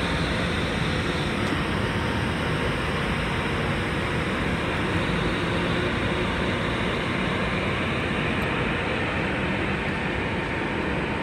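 PKP Cargo ET22 electric locomotive hauling a freight train close past: steady, even noise of the locomotive and wheels running on the rails, with no horn.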